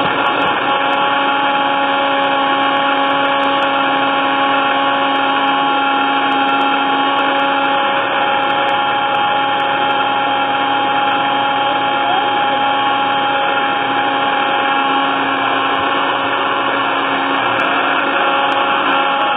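Countertop blender motor running steadily at one speed: a continuous hum whose pitch holds level throughout.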